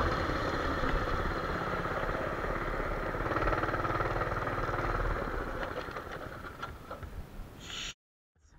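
Small engine of a motorised trike running as it slows, its sound fading gradually over the last few seconds. A few light clicks follow, then the sound cuts out abruptly near the end.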